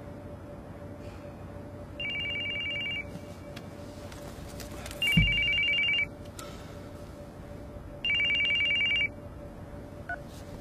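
Telephone ringing with a fast warbling two-tone trill: three rings of about a second each, three seconds apart. A low thud comes as the second ring starts.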